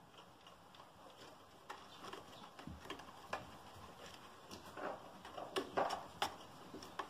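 Kittens playing: irregular taps, scratches and scuffles of claws and paws on a wooden table leg and wooden floorboards, busiest and loudest about five to six seconds in.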